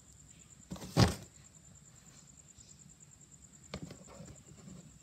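Cardboard toy box being handled: one sharp knock about a second in, then a lighter tap and faint rustling near the four-second mark, over a faint steady high whine.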